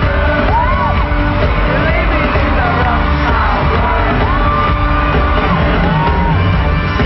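Live pop band music played loud through an arena PA, heard from within the audience, with fans screaming and whooping over it in short rising and falling cries.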